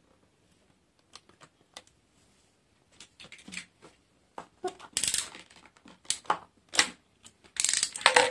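Sticky tape being pulled and torn off a roll while cardboard craft pieces are handled: light scattered clicks, then a few short rasping rips, the loudest about five seconds in and near the end.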